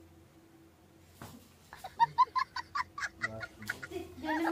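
Short, high-pitched squawking cries in a quick run of about four a second, starting about two seconds in after a quiet stretch with one soft thump.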